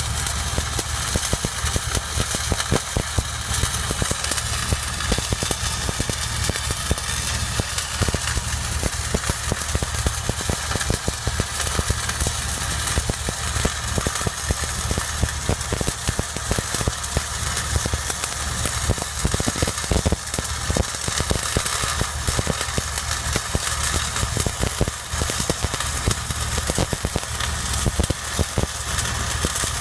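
Stick (SMAW) welding arc crackling and sizzling without a break as a rod is run along the underside of a steel pipeline joint. A steady engine drone runs underneath it.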